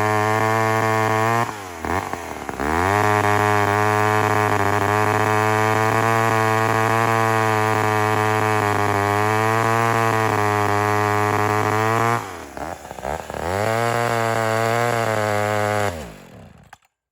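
McCulloch Mac 10-10 two-stroke chainsaw running at high revs, twice dropping in pitch and coming back up, then dying away near the end. The owner takes its poor running, lack of power and miss for an ignition fault, a coil or points.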